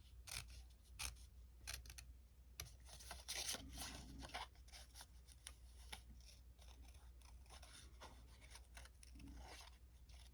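Small craft scissors snipping paper in a run of short, faint snips that thin out after the first few seconds.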